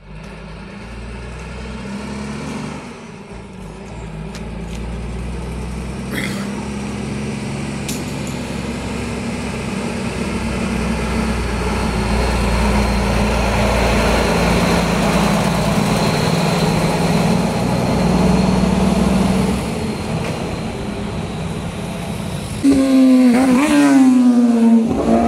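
Cabover diesel dump truck approaching, its engine drone growing steadily louder, then loudest as it passes close about 23 seconds in, the engine note bending down in pitch.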